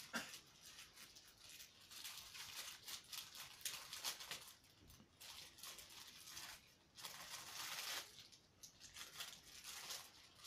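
A scissors snip, then hands tearing and crinkling open a white postal mailer bag in a run of faint, irregular rustling tears.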